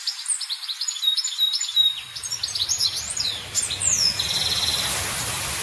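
Small birds chirping rapidly in quick, high, falling notes. About two seconds in, a low steady rumble joins underneath.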